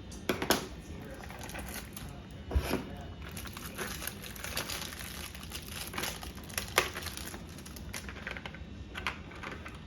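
Packaging crinkling and rustling as it is handled, with irregular sharp clicks and a few louder knocks, the loudest about half a second, two and a half seconds and nearly seven seconds in.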